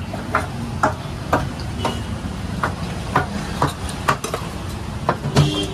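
Unglazed clay kulhad cups being set down one after another on a wooden counter, each landing with a short hollow knock, about two a second.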